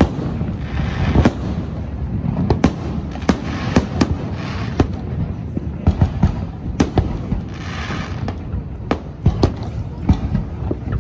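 Aerial fireworks shells bursting overhead: a continuous, irregular run of sharp bangs, roughly two a second.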